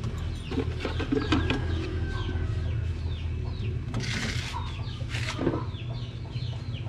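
Chickens calling in the background, many short high falling chirps and clucks, over a steady low hum. A few light knocks and rustles of eggs being handled in a plastic basket come about a second in and again around four to five seconds in.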